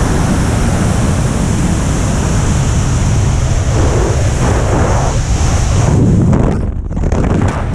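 Wind rushing hard over the helmet camera's microphone in wingsuit freefall. About six seconds in, the hiss thins and dips as the parachute opens and airspeed falls, leaving choppier, buffeting wind.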